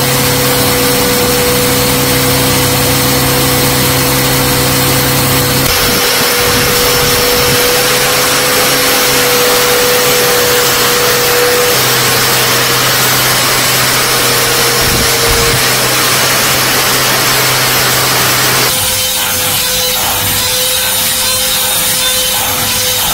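Electric power tool running against a work surface: a steady motor hum under loud, rough abrasive noise. The noise shifts in tone about six seconds in and again near the end.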